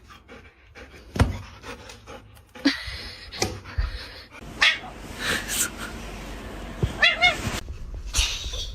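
A dog making sounds, including a short wavering whine about seven seconds in, among a few sharp knocks over a steady noisy background.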